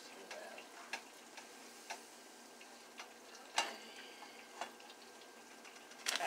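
Beignet dough frying in a skillet of hot oil: a low, steady sizzle with scattered sharp clicks, the loudest about three and a half seconds in.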